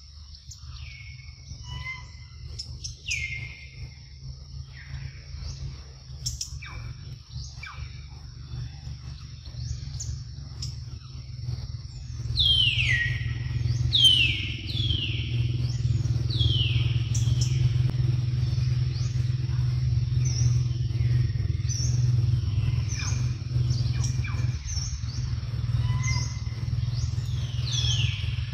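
Birds calling in the forest: short whistled notes that each slide downward, scattered at first, then coming in quick series about halfway through. Under them run a steady low rumble, which gets louder about halfway through, and a faint steady high whine.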